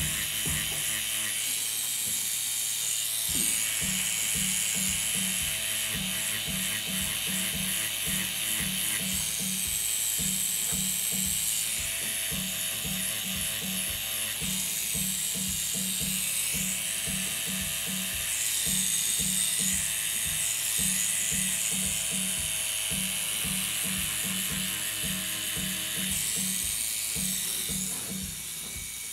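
Tattoo machine buzzing steadily under background music with a steady beat.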